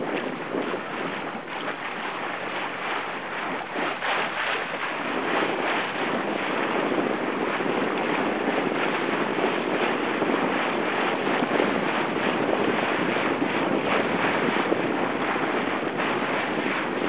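Wind buffeting the microphone over the rush and splash of water. It grows louder about five seconds in.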